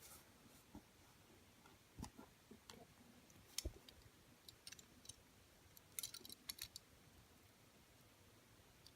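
Faint, scattered small clicks and taps of a die-cast toy car and its tiny tires being handled as the tires are prised off the wheels, with a quick run of clicks about six seconds in.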